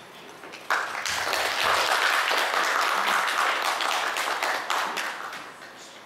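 Audience applauding, a dense patter of many hands clapping that starts suddenly under a second in and dies away near the end.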